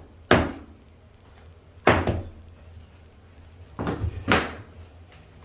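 Hammer striking a glued wooden plug, driving it into a stripped, oversized hinge screw hole in a door to fill it. Four sharp knocks, irregularly spaced, with the last two close together near the end.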